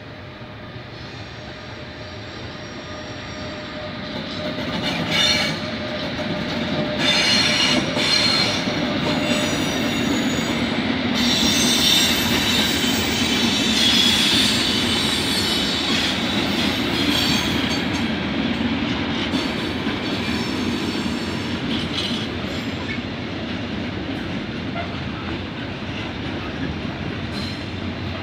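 Container freight train passing, hauled by two electric locomotives: the rolling rumble grows over the first few seconds, then wheels clatter over rail joints with bouts of high-pitched wheel squeal, easing into a steady roll of the container wagons near the end.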